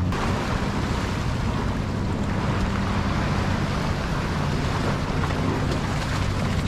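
Steady rushing noise of wind on the microphone and open water, with a faint low hum underneath.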